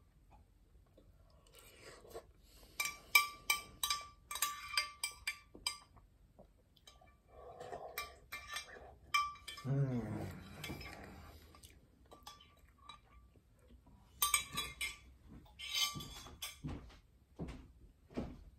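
Metal spoon beating eggs in a glass bowl: rapid clinking of the spoon against the glass, in two spells of quick strikes.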